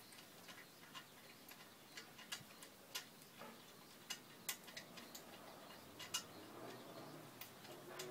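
Faint, scattered ratchet-wrench clicks, about a dozen sharp ticks at uneven intervals, as the handle is worked on the cylinder-head bolts of a small engine-pump engine during teardown.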